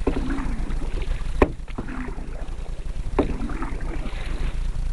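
Canoe being paddled: paddle strokes in the water, with two sharp knocks, one about a second and a half in and another near three seconds, over a steady low rumble.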